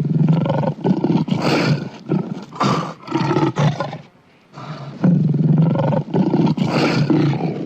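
Monster roar sound effect made of layered animal roars and snarls, for a creature called the Night Feeder. It comes in two long, rough, pulsing roars, with a brief drop between them about four seconds in.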